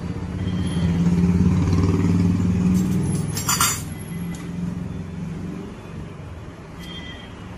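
A motor vehicle engine running with a steady low hum, swelling louder for a couple of seconds and then easing back. A short, sharp hiss comes about three and a half seconds in.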